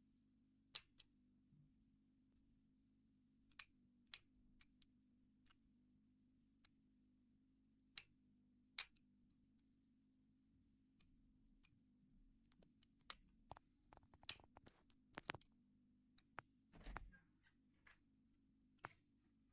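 Faint, scattered metallic clicks and ticks of homemade picking tools working in a Squire 660 padlock. The clicks are irregular, with a busier run of small clicks and rattles near the end, over a low steady hum.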